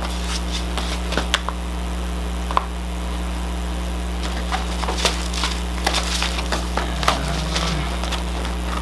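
Rolled diamond painting canvas with its clear plastic cover film being unrolled and pressed flat by hand on a table: scattered crinkles and crackles, busier in the second half. A steady low hum underneath.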